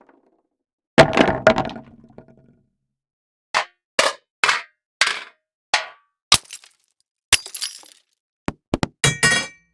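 A series of separate impact sound effects: one heavy hit about a second in with a ringing tail, then about nine short, sharp hits and cracks spaced under a second apart, the last few with a high ringing tail.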